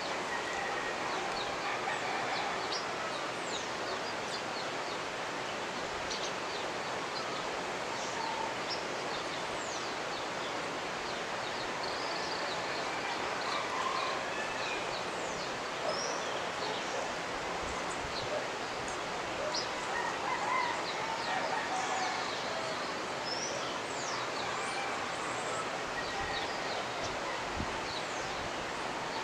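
The Jimenoa River running, a steady rushing of water, with many birds chirping and whistling over it throughout.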